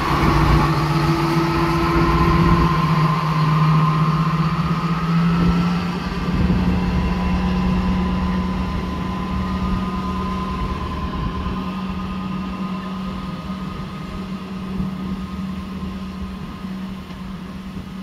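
Sentinel 0-6-0 diesel shunter's engine running under power as it moves off. Its steady drone rises slightly in pitch over the first few seconds, then grows gradually fainter as the locomotive draws away.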